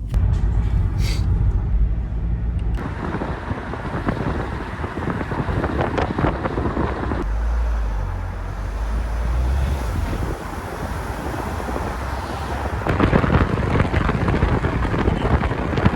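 Wind buffeting the microphone over the noise of road traffic, a continuous low rumble that grows louder about thirteen seconds in.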